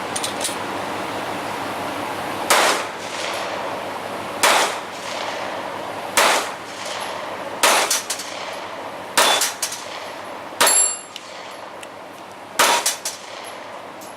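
A series of about seven gunshots fired at a steady pace, one every second and a half to two seconds, each with a short echo.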